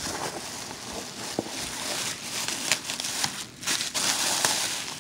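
Plastic packing wrap crinkling and rustling as hands dig through it in a cardboard box, with many small sharp crackles.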